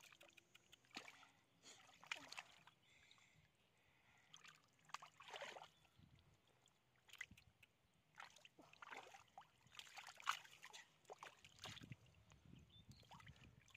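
Hands splashing and squelching in shallow muddy water, in irregular short bursts, while fish are groped for in the mud by hand. The sharpest splash comes about ten seconds in.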